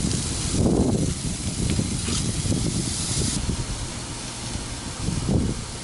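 Flank steaks sizzling on a gas grill: a steady hiss that drops off sharply about three seconds in, over a low rumble.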